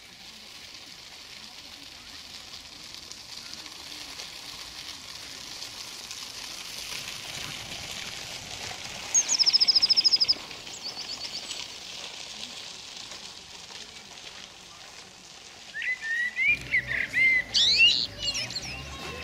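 Songbirds singing: a fast, high trill of rapidly repeated notes about nine seconds in, a shorter trill just after, then a burst of loud, varied chirps near the end, over a steady faint hiss.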